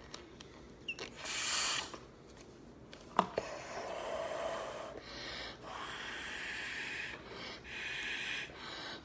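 Breath blown through a drinking straw into a lump of slime, inflating a slime bubble: a run of hissing puffs, about six, each lasting up to a second or more, with short gaps between. A short sharp squeak about three seconds in.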